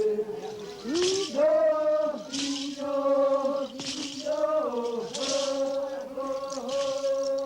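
Men's ritual chant in long held notes, several voices together, with rattles shaken about once a second.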